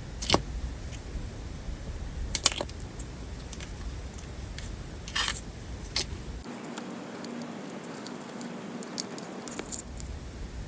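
Thick, glossy candle-type slime being handled, its surface film bursting with sharp crackling pops as it traps air: a few loud pops spread through, with smaller crackles in between.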